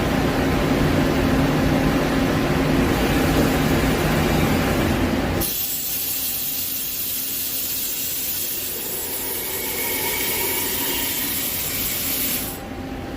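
CNC lathe running: a steady low machine hum with a few held tones, which about five seconds in gives way abruptly to a high, even hiss that stops shortly before the end.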